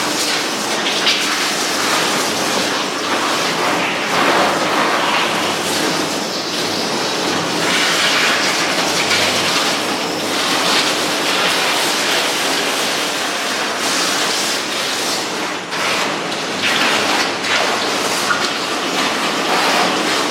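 Davis ProPet pet washer running on its rinse setting: water spraying steadily over a small dog in the tub, the rush swelling and easing now and then.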